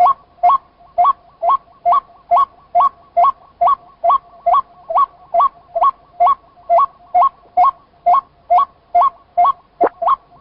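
White-breasted waterhen calling: one short note that jumps up in pitch, repeated over and over in a very even rhythm of a little more than two notes a second.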